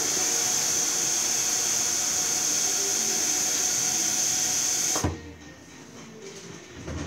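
Bathroom sink tap running water into the basin as hands rinse a plastic tub under it, shut off suddenly about five seconds in.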